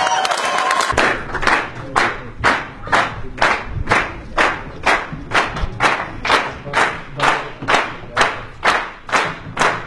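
A crowd clapping in unison to a steady beat, about two claps a second, starting about a second in after a loud voice.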